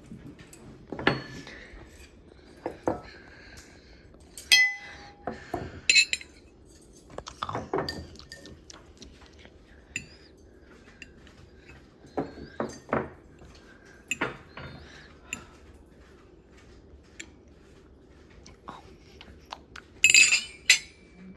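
Metal cutlery and dishes being set down on a table: scattered clinks and clacks, a few ringing briefly, with a louder clatter near the end.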